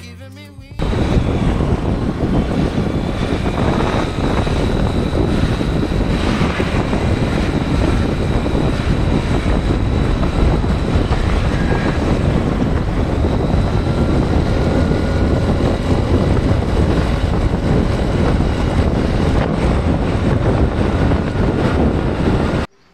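Wind buffeting the microphone over the running engine and road noise of a motorbike moving at speed on a highway. It starts abruptly about a second in and cuts off just before the end.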